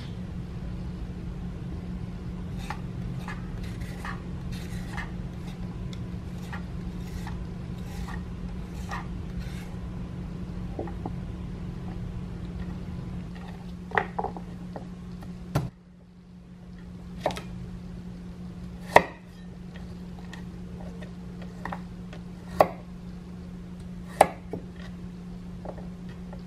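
Carrots being peeled with a vegetable peeler, a run of light scraping strokes about two a second. Then a knife cuts carrot on a wooden cutting board: a handful of sharp knocks, one every second or two. A steady low hum runs underneath.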